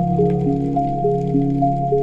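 Background music: several held notes stepping to new pitches in a slow, even pattern over a steady low bass.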